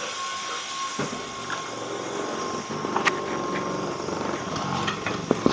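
Flying spinner toy's small propeller and motor whirring steadily with a high whine as the toy flies about out of control, with a few sharp knocks.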